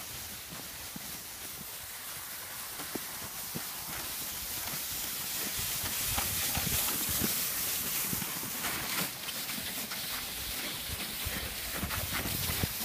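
Blue plastic sled hissing and scraping as it is dragged by a rope over snow, with irregular crunching footsteps.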